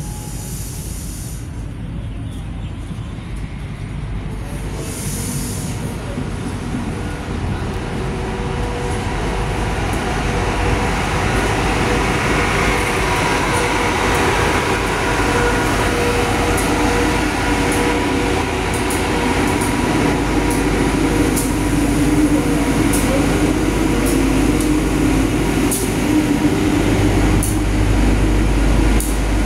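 Local passenger train pulling in along a station platform, its running sound with steady engine tones growing louder over the first dozen seconds. Sharp ticks come through in the second half, and a deeper low rumble swells near the end.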